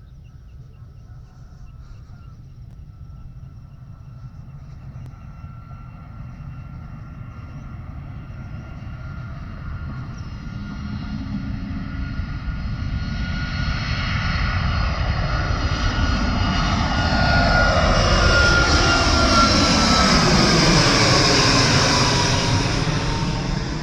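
Boeing 737 twin-turbofan jet airliner taking off: a high engine whine over a low rumble grows steadily louder as it approaches. It peaks about three-quarters of the way through, when the whine drops in pitch as the plane passes, then begins to fade near the end.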